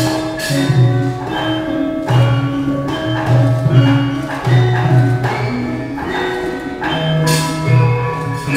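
Javanese gamelan playing a dance accompaniment: sustained ringing metallophone and gong notes over strong low tones, marked by sharp percussion strokes at a steady beat.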